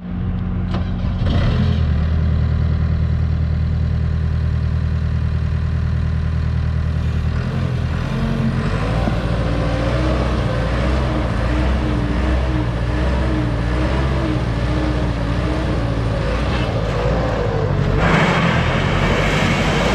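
JCB 260 skid steer's diesel engine running: steady at first, then from about a third of the way in the note changes and a wavering whine rides over it. Near the end it grows louder and harsher.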